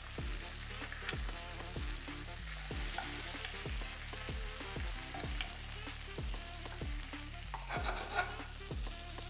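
Melted butter sizzling and spitting in a hot frying pan as it is spooned over a ribeye steak with garlic and herbs. Underneath runs a steady low beat of about three thuds a second.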